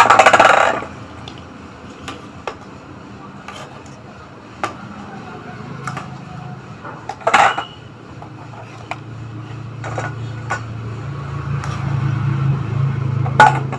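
A steel spoon and boiled eggs clattering against a stainless steel bowl, loudly at the start and again about halfway through, with scattered light taps and knocks as the eggs' shells are cracked for peeling. A low hum builds over the last few seconds.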